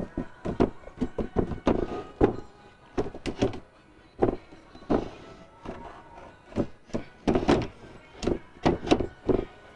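The drawer of an IKEA Hemnes daybed knocking and bumping against the frame as it is worked back onto its runners and wheels: a long string of irregular thunks and clatters. It takes several tries before it goes in.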